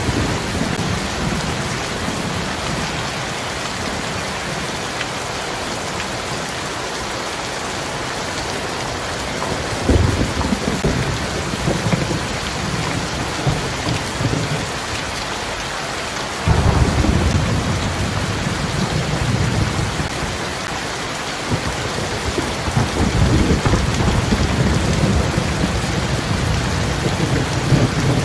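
Heavy rain pouring steadily onto a paved street, a constant hiss. Low rumbles of thunder roll in about ten seconds in, again with a sudden start a little past the middle, and through the last few seconds.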